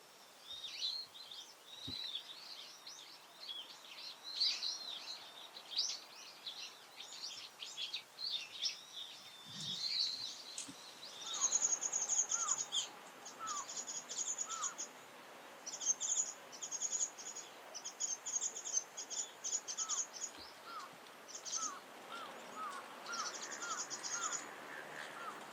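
Japanese white-eye twittering: a fast, jumbled run of thin, high chirps. About halfway through, rapid high buzzy trills and a string of short, lower rising notes take over against a louder background hiss.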